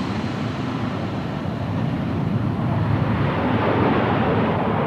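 Boeing B-52 Stratofortress's eight jet engines running as the bomber rolls out on the runway after touchdown, a steady rushing noise. Its high hiss dies away over the first three seconds while the low rumble goes on.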